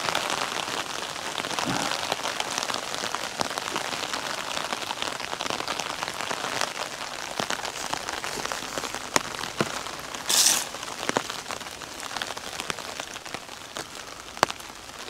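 Steady rain falling on a camouflage tarp overhead, with individual drops ticking sharply on the fabric. A short hissing rustle about ten seconds in.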